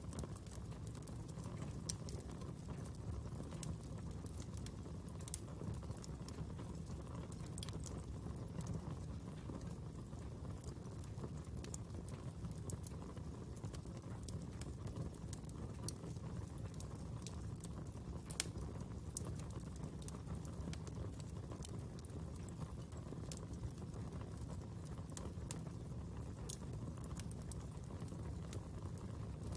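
A fire burning and crackling: a steady low rumble of flames with irregular sharp pops and snaps.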